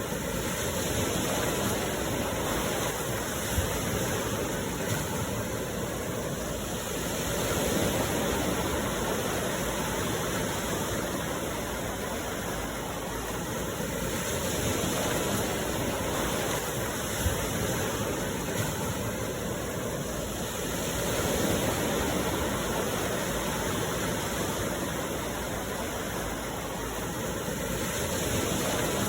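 Sea surf: a steady rushing wash of waves that swells and eases every several seconds.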